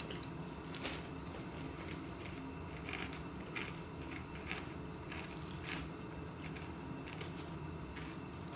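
Crisps crunching in a person's mouth as he chews: faint, irregular crunches.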